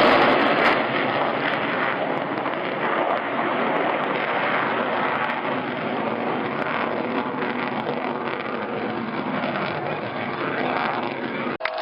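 Sukhoi T-50 (PAK FA) jet fighters flying over, their twin jet engines making a loud, steady rushing noise that eases slightly as they pull away, ending in an abrupt cut near the end.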